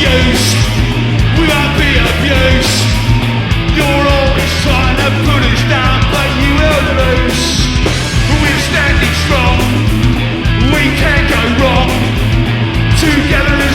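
Punk rock band playing live: distorted electric guitars, bass and drums, with a sung lead vocal.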